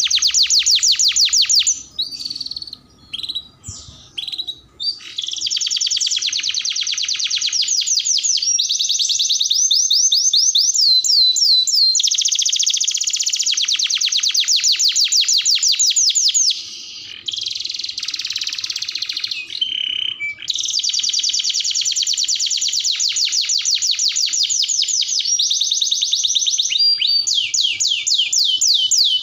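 Domestic canary singing long, rapid trills of repeated high notes, with a short break about two seconds in and a harsher, buzzy phrase past the middle.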